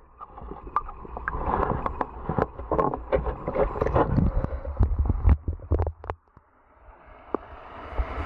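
Creek water heard through a submerged waterproof camera: muffled sloshing and gurgling with many sharp clicks and knocks as the water is churned. It drops almost to silence about six seconds in, then a hiss of moving water rises near the end.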